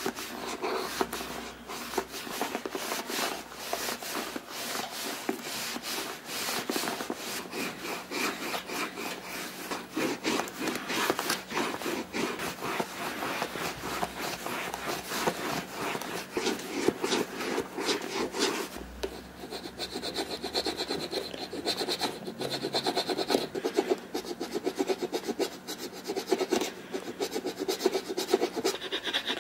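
A deer bone rubbed in quick back-and-forth strokes over the shell cordovan leather of an Alden 990 shoe, slicking and burnishing the leather to smooth out scratches.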